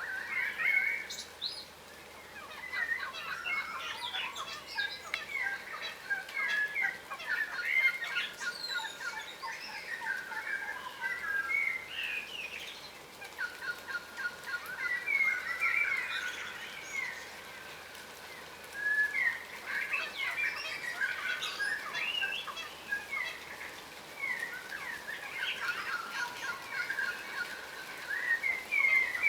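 Birds chattering: many short chirps and twitters overlapping in busy bursts, with a couple of brief lulls.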